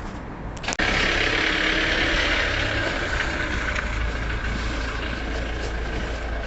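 Ford Transit van's diesel engine running at a steady idle on a cold start. It comes in loud and abruptly about a second in.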